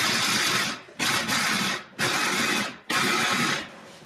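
Electric mini food chopper run in four short pulses, its blade grinding walnuts down to a fine meal. Each burst lasts just under a second, with brief pauses between.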